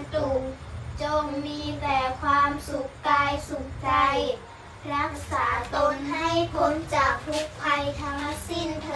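A child singing in short phrases, some notes held, over a low steady hum.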